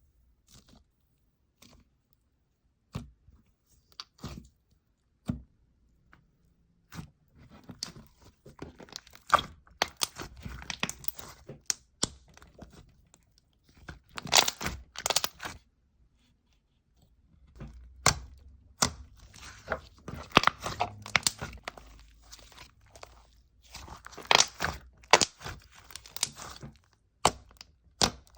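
Slime being squished, stretched and poked by hand, giving irregular crunching, crackling and popping. The sounds are a few scattered pops at first and come thick and fast from about seven seconds in.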